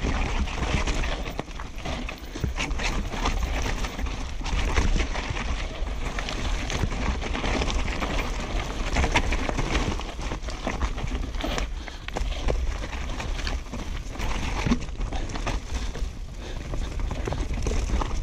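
Downhill mountain bike descending a rocky trail, heard from the bike-mounted camera: a constant rumble of tyres and wind on the microphone, broken by frequent irregular knocks and rattles as the bike hits rocks and roots.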